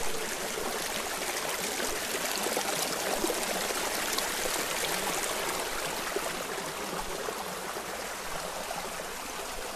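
Fast, shallow stream rushing and splashing down over rocks right by the microphone: a steady, even rush of water.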